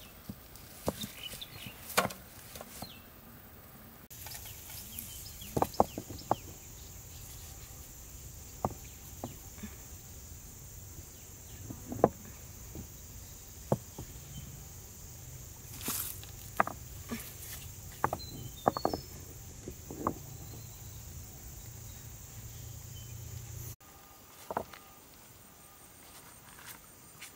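Scattered knocks, taps and clicks of hands working with materials at a camp, over a steady high hiss. The background changes abruptly about four seconds in and again near the end.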